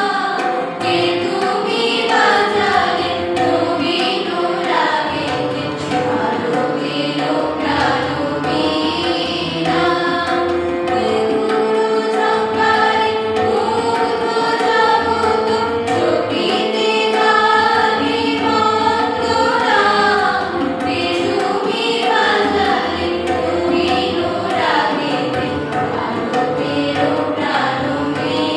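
A choir of young voices singing a song together, accompanied by tabla drums keeping a steady rhythm.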